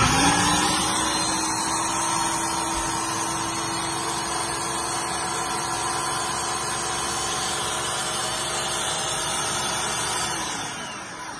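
Ninja Professional 1500-watt countertop blender running on a jar of plantain. It switches on suddenly, holds a steady motor whine over the churning, and spins down about ten seconds in.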